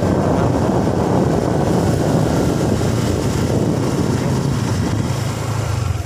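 Wind rushing over the microphone of a moving motorcycle, with the motorcycle's engine running steadily underneath. A steady low engine note comes up in the second half.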